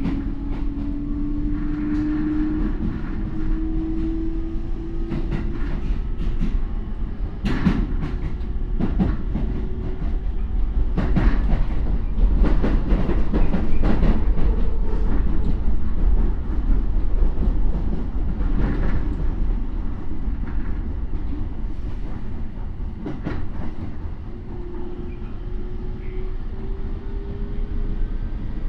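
Onboard sound of a Toei 10-300 series first-batch train, one of the cars noted for an odd sound, running under power: the Mitsubishi IGBT VVVF inverter and traction motors give a whine that rises slowly in pitch, over a steady rumble of wheels on rail. Through the middle the wheels click over rail joints, and near the end a rising motor whine comes in again.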